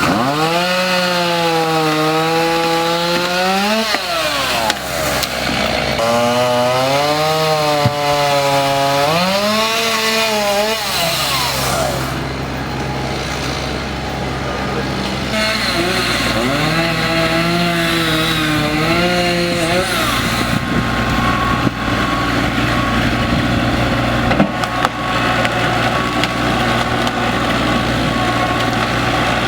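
Gas chainsaw revving in three bouts as it cuts fallen trees, its pitch climbing and dipping with each cut. A vehicle engine idles steadily underneath.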